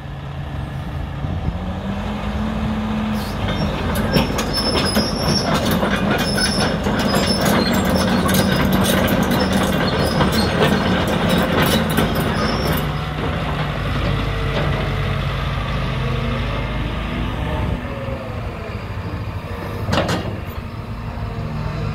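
Diesel engine of a JCB JS220X tracked excavator picking up revs, then steel tracks clanking and squealing for about ten seconds as the machine travels. After that, the engine and hydraulics run more quietly with a whine that rises and falls, and there is a single sharp clank near the end.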